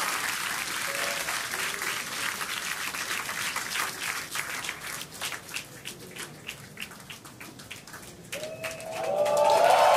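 A crowd applauding, the clapping thinning to scattered single claps after a few seconds. Near the end, a loud rising sound swells in.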